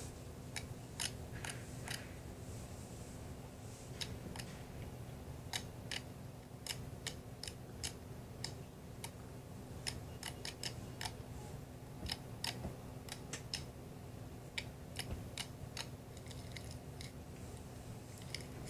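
Slime being pressed and stretched by hand, giving irregular sharp clicks and pops, often in quick little clusters, over a steady low hum.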